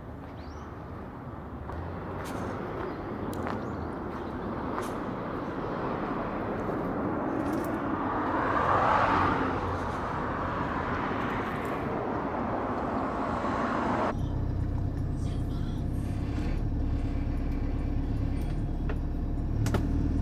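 Motor vehicle noise: a rushing sound that builds to a peak about halfway through, then a sudden change to a steady low rumble.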